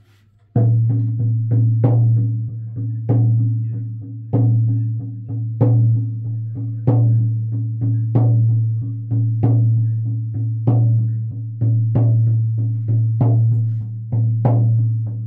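Hide-headed frame drum struck with a padded beater, starting about half a second in: a steady rhythm of one accented stroke about every 1.25 s with lighter strokes in between. Each stroke has a deep, ringing tone.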